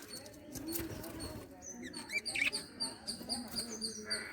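Lovebirds chirping: a steady run of short high chirps, about two to three a second, with a few louder squeaky calls about two seconds in.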